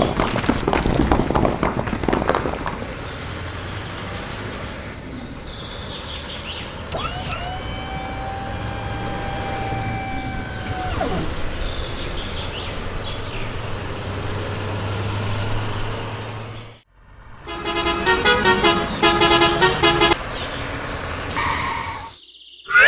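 A run of vehicle sounds: clattering at first, then a vehicle horn held for about four seconds, and later a fast repeating warbling tone for a couple of seconds.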